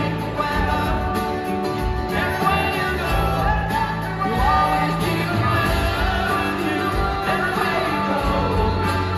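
Live band playing a mid-tempo rock song through an arena PA: drums, guitars and mandolins with a lead vocal singing over them.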